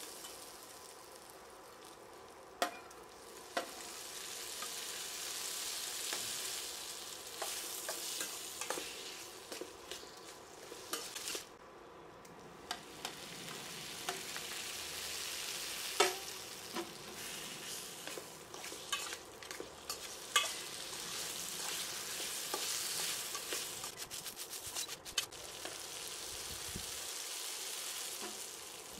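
Okra, shallots and tomatoes sizzling as they fry in a stainless steel pan, with a spatula scraping and clicking against the pan as they are stirred.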